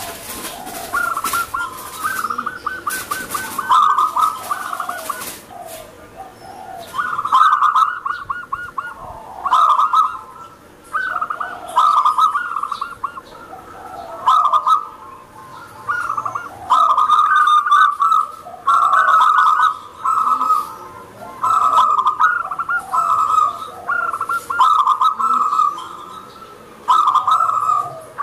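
Zebra dove (perkutut) singing over and over: a run of rapid, rolling coo phrases, each a second or so long, coming every one to two seconds.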